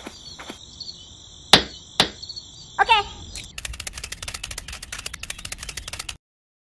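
Steady insect chirping, like crickets, broken by two sharp knocks about half a second apart, fitting a small hand tool striking the ground. Then a fast run of ticks lasts about two and a half seconds and cuts off abruptly.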